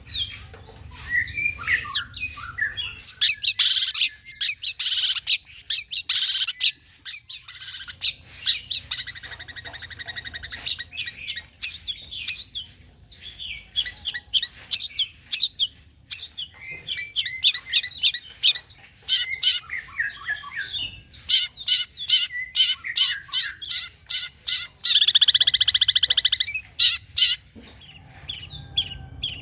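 Long-tailed shrike (cendet) singing a fast, varied song of chirps and squawks, broken by harsh buzzing rattles twice: once near the middle and again near the end.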